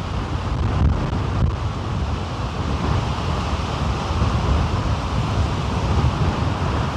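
Strong wind buffeting the microphone, a steady low rumbling gust noise, with waves washing in behind it.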